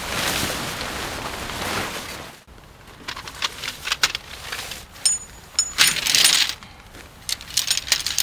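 Tent fabric rustling and swishing as a large car-side tent is shaken out and spread. About two and a half seconds in this stops, and tent pole sections clink and click against each other in quick irregular bursts.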